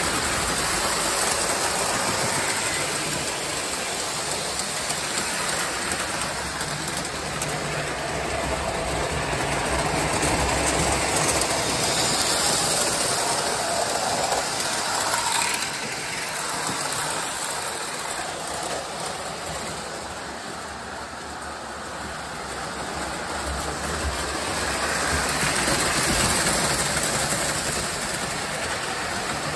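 O-scale model trains running on three-rail metal track, a continuous rolling rattle of wheels and motors that grows louder and softer as the cars pass near.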